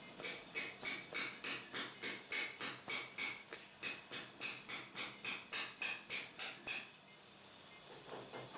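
Mallet tapping a sharp osteotome to cut through a dog's palatine bone: about three sharp metallic strikes a second, some twenty in all, stopping about seven seconds in. The ring of the strikes shifts in pitch about halfway through.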